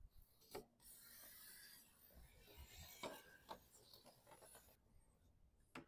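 Faint rubbing and scraping from window tint film being handled and pressed against a truck's door glass, with a few light clicks.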